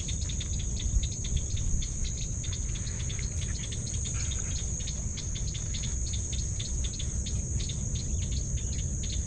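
Insect chorus: a steady high-pitched trill with a fast, even run of chirps beneath it.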